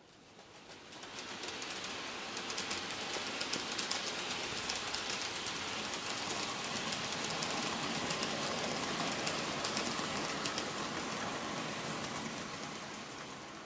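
N-gauge model electric train (Micro Ace JR Kyushu 813 series coupled to an 811 series) running past on its track: a steady running whir with rapid fine clicking from the wheels on the rails. It swells over the first couple of seconds as the train approaches and eases off near the end.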